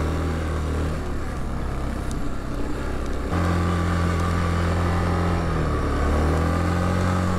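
Yamaha Kodiak 450 ATV's single-cylinder four-stroke engine running steadily while riding through snow. About three seconds in it opens up to higher revs and holds there.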